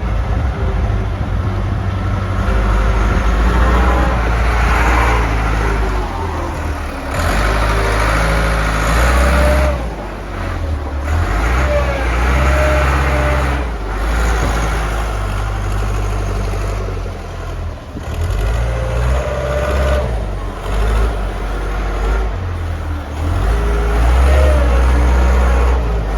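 Schaeff SKL 850 wheel loader's diesel engine running, its revs rising and falling repeatedly as the machine works. A few short whining tones come and go on top of the engine note.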